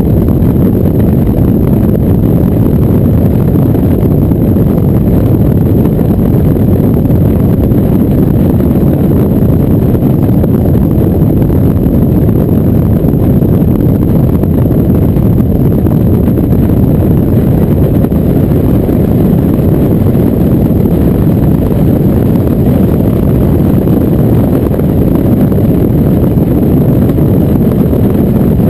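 Steady, loud low rumble of wind buffeting and road noise on a truck-mounted GoPro's microphone, unchanging, with no car passing by.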